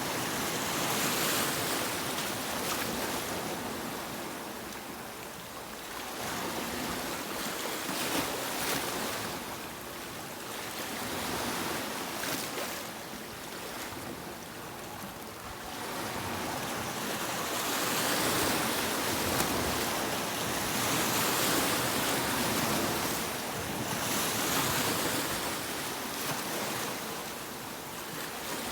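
Sea waves breaking and washing onto a beach, the surf swelling and ebbing in slow surges every few seconds.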